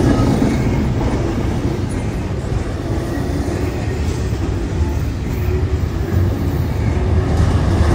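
Double-stack intermodal well cars of a freight train rolling past close by: a steady low rumble of steel wheels on rail, getting a little louder near the end.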